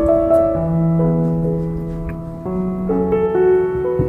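Background piano music: a gentle melody of held notes over chords.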